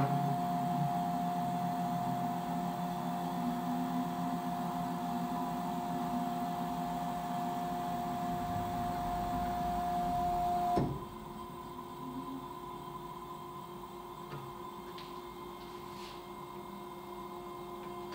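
Stepper motors of an Ooznest WorkBee CNC driving the gantry along its rails: a steady, even whine that stops abruptly about eleven seconds in, leaving a fainter steady hum.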